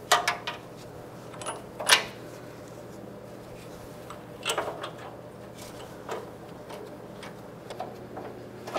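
Scattered metallic clicks and knocks of bolts and hardware being fitted by hand to a truck's chrome front bumper mounts, in small clusters a few seconds apart, over a steady low hum.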